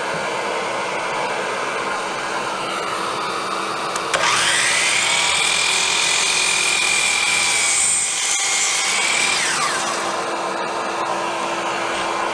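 Hercules dual compound miter saw starting up about four seconds in with a quickly rising whine, running at a steady high pitch through a cut in wood, then winding down after about five seconds. A steady whir runs underneath throughout.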